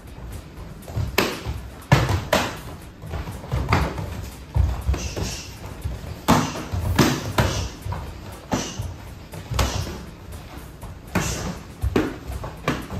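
Gloved punches and kicks landing in karate sparring: about a dozen irregular sharp smacks and thuds.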